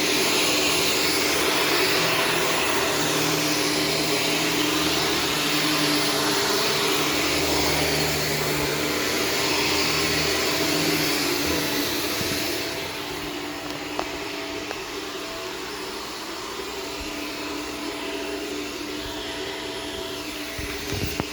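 Shark self-cleaning vacuum cleaner running steadily with a constant whine over its rushing noise. A little over halfway through it turns quieter and duller and keeps running.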